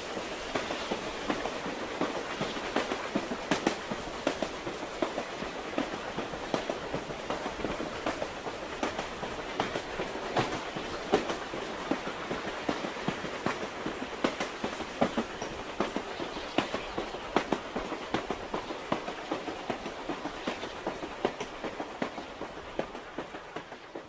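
Running noise inside a moving electric commuter train carriage: a steady rumble with frequent clacks and rattles of the wheels over the track. It fades out near the end.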